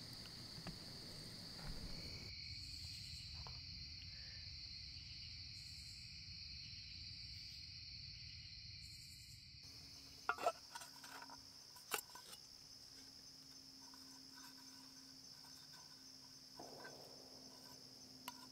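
Night insects, crickets or katydids, calling in a steady high-pitched chorus. A few sharp clicks come about ten and twelve seconds in.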